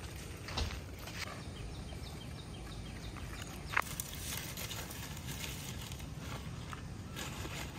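Dry firewood sticks rustling and clicking as a bundle is handled and set down, with one sharp snap or knock a little under four seconds in, over a steady background hiss.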